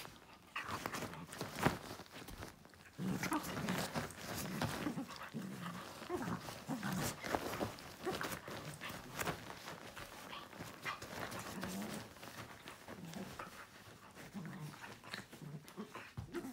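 A young husky and a Czech wolfdog puppy play-wrestling: short low growls many times over, with rustling and soft thumps of the duvet under them.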